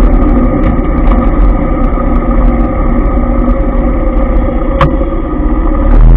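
Motor scooter engines idling and creeping in dense city traffic, with a steady engine hum over a low traffic rumble and a single sharp click about five seconds in. Heavy wind rumble on the microphone comes back right at the end as the ride picks up speed.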